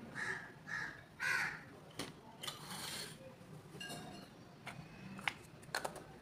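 A bird calls three times, about half a second apart, in the first second and a half; the third call is the loudest sound. A few sharp clicks and taps follow as the LED bulb's plastic parts are handled.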